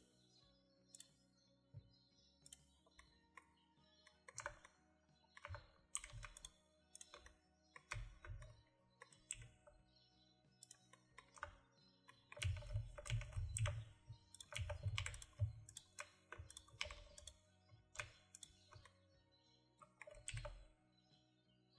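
Computer keyboard keys clicking irregularly as hotkeys are pressed, with a stretch of heavier, duller knocks about two-thirds of the way through. Faint background music underneath.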